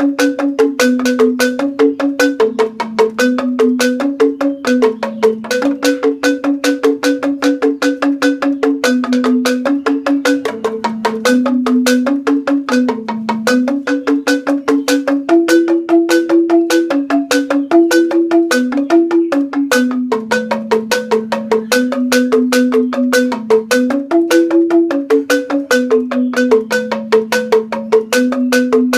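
Rindik, a Balinese bamboo tube xylophone, played with two mallets in joged bungbung style: a fast, unbroken run of hollow bamboo notes, a slower low melody moving stepwise under a quicker repeating figure higher up.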